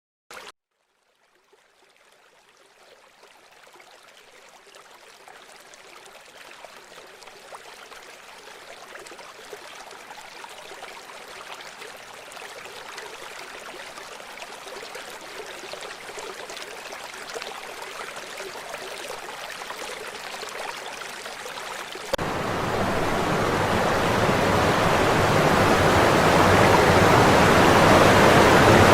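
Rushing river water. It fades in slowly after a brief click, then jumps suddenly louder and fuller about 22 seconds in, and keeps growing.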